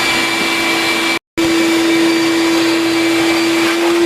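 A vacuum-type electric motor runs loud and steady: a constant hum over a rushing hiss, cut off for a moment about a second in.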